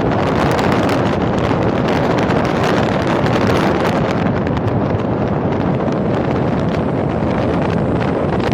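Steady, loud wind rush buffeting the microphone while riding, with scattered crackles over a dense noise of the ride underneath.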